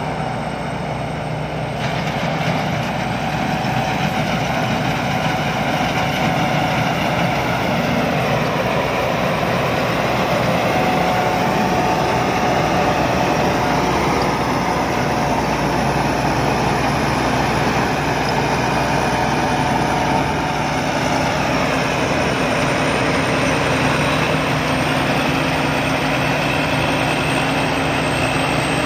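Sakpattana KMT 240 rice combine harvester running steadily, its engine and machinery making a continuous dense mechanical din that gets a little louder about two seconds in.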